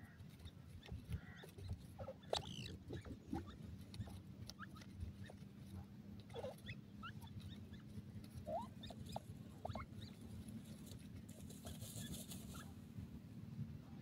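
Grey francolins calling softly at close range: scattered faint squeaks and short chirps, some rising briefly in pitch, with small scratching and pecking noises in dry soil over a faint low hum.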